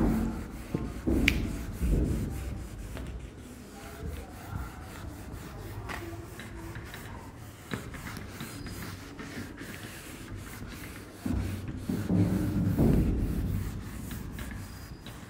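A writing board being wiped clean with a hand-held duster: repeated rubbing strokes, heaviest about a second in and again near the end.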